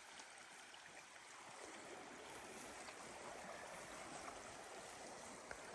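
Faint, steady rush of distant running water.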